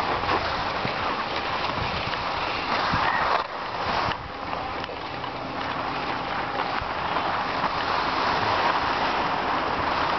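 Skis sliding and scraping over snow, a steady hiss that dips briefly about three and a half seconds in.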